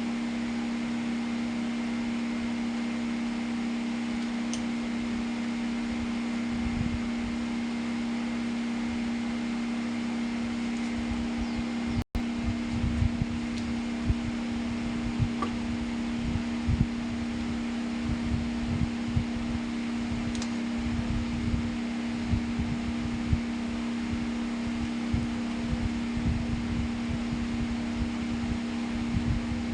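Homemade table fan's 12V DC motor running at a steady speed, a constant hum with a faint high whine. After a short break about twelve seconds in, irregular low rumbling gusts join it, like the fan's airflow buffeting the microphone.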